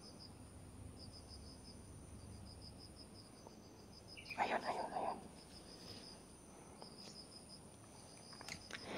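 Faint insects chirping in short trains of rapid pulses over a steady high-pitched drone. A brief soft noise comes about four and a half seconds in.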